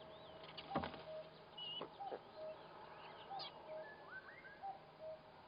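Wild birds calling around the nest: short high whistled phrases, and a lower two-note call, the second note lower, repeating every second and a half or so. A single sharp knock comes about a second in.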